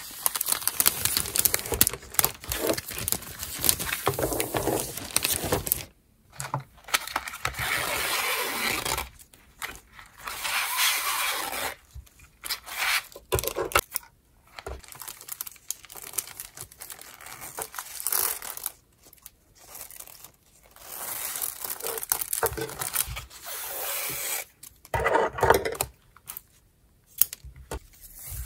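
Gift-wrapping sounds: clear plastic wrapping film crinkling around a picture frame, ribbon rustling and sliding as it is pulled and tied, and a scissors snip in the middle. The sounds come in short bursts with brief pauses between them.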